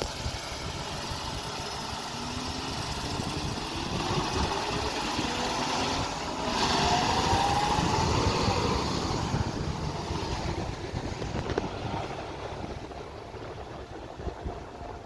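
A vehicle's engine running and then accelerating, its note rising in pitch, loudest about halfway through before easing off.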